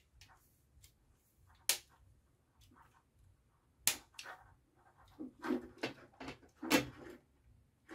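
Scattered sharp clicks and rattles of small parts being handled: a screwdriver working the terminal screws of a plastic push-button contact block, wires shifting, and a plastic relay socket being picked up. Three louder clicks stand out, near two, four and seven seconds in, with a busier run of handling noises between about five and seven seconds.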